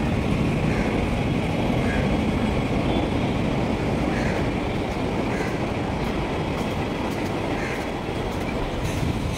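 Mumbai suburban electric local train (EMU) running along the tracks: a steady rumble of wheels on rail, with a few faint clicks in the second half.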